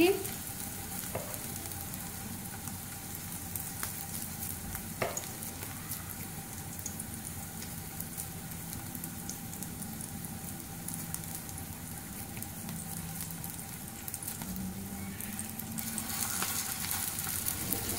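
Chapli kababs sizzling in hot oil on a flat tawa griddle, a steady crackling fry over medium flame. A single soft knock comes about five seconds in, and the sizzle grows a little louder near the end as another patty is laid in.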